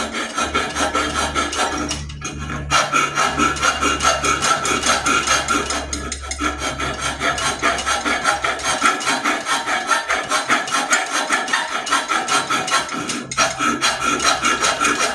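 Hand file rasping back and forth across cast aluminum, smoothing the freshly ground drawer opening of a skull air cleaner. Quick strokes, about three to four a second, with short pauses about two, six and thirteen seconds in.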